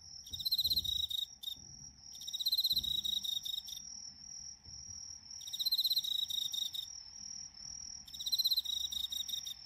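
Night insects chirping: a continuous high-pitched trill, with four bouts of rapid pulsed chirping about every two to three seconds, each lasting about a second and a half.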